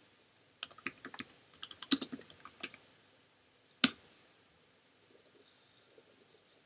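Typing on a computer keyboard: a quick run of keystrokes for about two seconds, then a single harder key press about a second later, the Return key that sets the command running.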